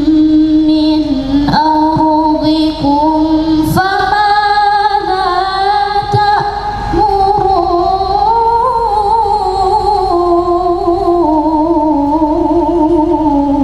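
A woman's voice reciting the Quran in melodic tilawah style, in long, ornamented, drawn-out notes. The pitch steps up about four seconds in and falls away as the phrase closes near the end.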